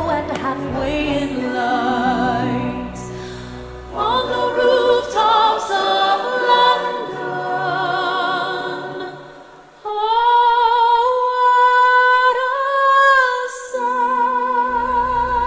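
Show soundtrack music with singing; about two-thirds in a long high note is held with vibrato for several seconds.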